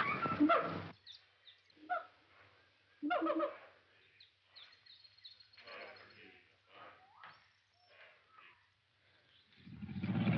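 Jungle bird and animal calls: a call trailing off in the first second, then scattered short cries, chirps and a thin whistle. Near the end a wild cat's low growl swells up and becomes the loudest sound.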